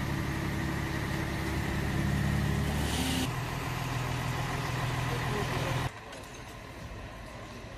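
Fire truck's engine running steadily, a low hum. Its pitch pattern changes abruptly about three seconds in, and about six seconds in it drops away to a quieter outdoor background.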